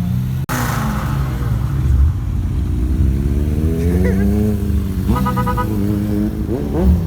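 Car engines revving over a steady low rumble, the pitch climbing and falling several times, with a few quick, sharp revs near the end. A short burst of rapid chirping cuts in about five seconds in.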